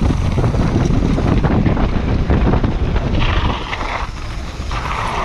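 Wind buffeting a helmet-mounted GoPro's microphone while a downhill mountain bike rattles over a dirt trail at speed. The rumble and rattling ease after about three seconds as the bike rolls out onto flat gravel, with a couple of short hissing noises near the end.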